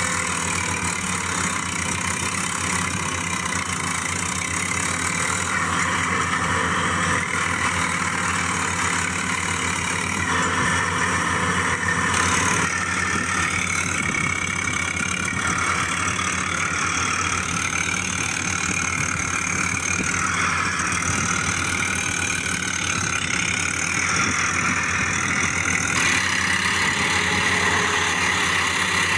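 Steady tractor-like engine idling sound, an even drone whose upper tone shifts abruptly twice, about twelve seconds in and again near the end.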